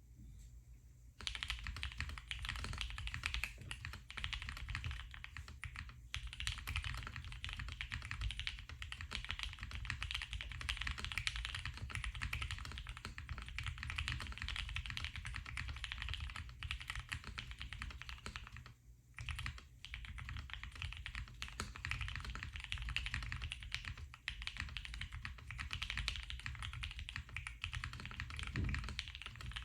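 Fast continuous typing on a custom Ciel 60% mechanical keyboard with lubed Gateron Cap Yellow linear switches in an aluminium plate, GMK Honor keycaps and case foam: a dense stream of keystrokes that starts about a second in and breaks off briefly about two-thirds of the way through.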